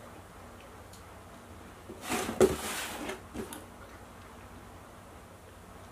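Wet mouth sounds of eating a mangosteen segment: a short slurp and chew about two seconds in, followed by a few faint clicks, over low room tone.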